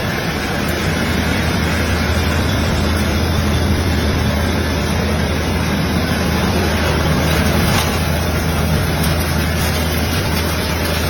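Commercial rice milling machine running steadily: a loud, even mechanical drone with a low hum beneath a wide, continuous rush of noise.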